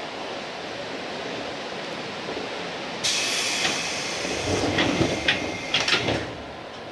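JR East 205 series electric train running, heard from the cab: steady running noise, then about three seconds in a sudden loud hiss sets in, followed by a cluster of thumps and clicks near the end.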